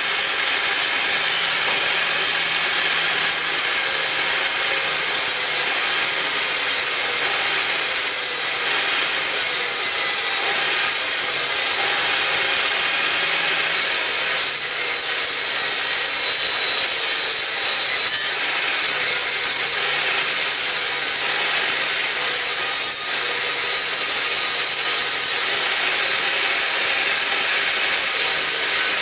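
Angle grinder with a flap disc grinding down a weld on a steel exhaust pipe, running steadily under load with a loud, high hiss that dips briefly a couple of times.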